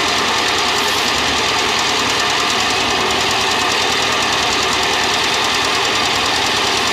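Small stationary engine of a towed concrete mixer running steadily, turning the mixing drum.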